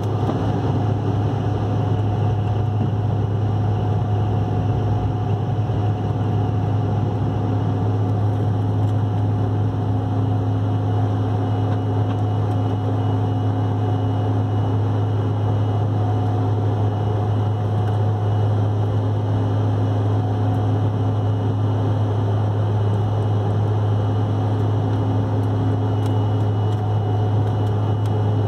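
Airliner cabin noise during the climb just after takeoff: engines at climb power and rushing air make a steady drone with a strong low hum.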